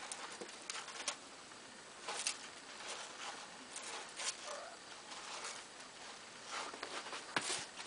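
Month-old kittens scrambling and digging in a plastic litter box: irregular scratching and rustling of the litter granules, with sharper scrapes every second or so.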